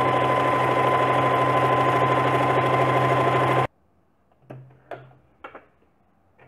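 Elgin Genius Plus JX4035 domestic sewing machine running steadily at speed while sewing a decorative zigzag stitch, then stopping abruptly about three and a half seconds in. A few faint taps follow.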